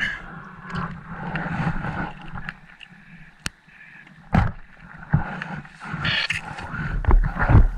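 Scattered knocks and clicks of gear being handled on a fishing kayak, over a wash of water and wind in the first couple of seconds, with a cluster of knocks near the end.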